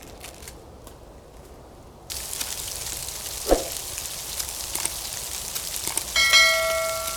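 Rain pattering and dripping in a wet winter forest, coming in suddenly about two seconds in as a steady hiss full of small ticks. Near the end a brief ringing tone sounds over it.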